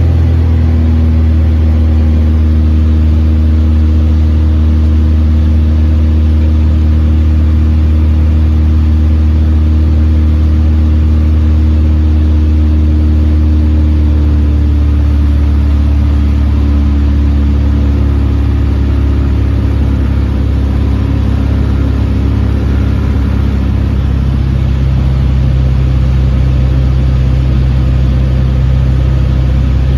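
Mooney M20E's four-cylinder Lycoming engine and propeller heard from inside the cockpit: a loud, steady drone on the approach to land. Its pitch eases down a little about halfway through.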